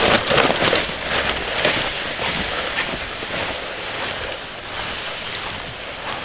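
Snowshoes crunching through snow, with a loaded pulk sled sliding along behind, in a rapid uneven string of crunches that fade as the walker moves away.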